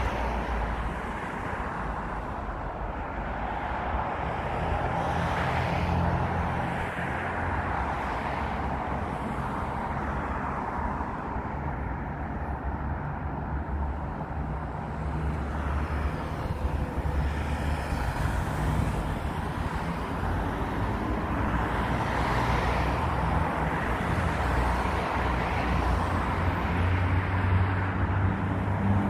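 City street traffic: a steady low hum of vehicle engines and tyres on the road.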